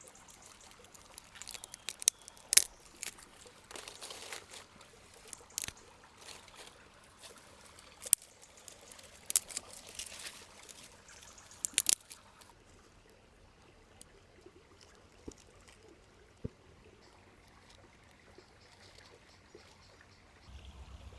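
Campfire cooking sounds: irregular sharp crackles and pops, with short liquid-like hissing stretches about four and ten seconds in. It turns quieter from about twelve seconds on, with only an occasional pop.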